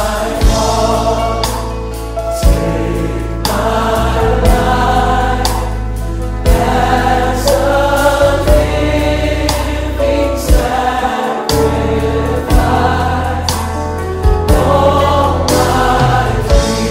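Gospel music: a choir singing over a sustained bass line, with a slow beat and a heavy drum hit about every two seconds.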